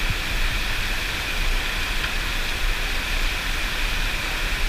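Steady rush of a river's current running over rocks and riffles.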